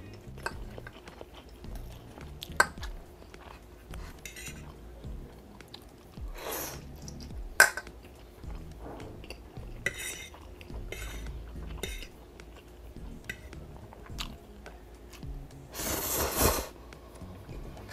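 Metal fork clinking on a ceramic plate a few times, with close-miked chewing of noodles between the clinks. Near the end comes a longer slurp as a forkful of noodles is sucked in.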